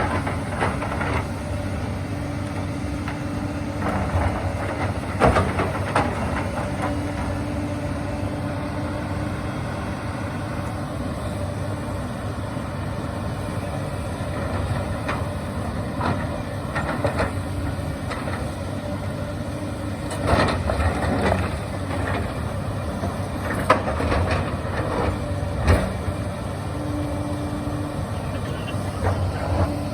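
Hyundai 220 crawler excavator's diesel engine running steadily under load, with a higher hum that comes and goes and several sharp knocks and scrapes of rock being pulled and turned over by the bucket.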